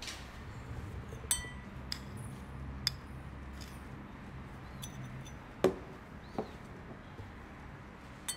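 A metal spoon and small ceramic cups clinking against a ribbed glass mixing bowl as sugar and sauces are added: about six sharp, separate clinks with a short ring. The loudest and dullest knock comes about two-thirds of the way through.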